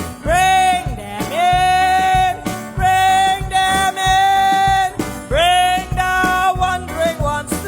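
Music with a singing voice over a guitar and a pulsing low accompaniment; the voice holds long notes and slides up into some of them.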